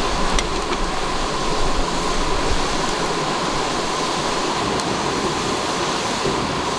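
Shallow stream running over rocks, a steady rushing of water, with a few faint crackles from a small wood campfire.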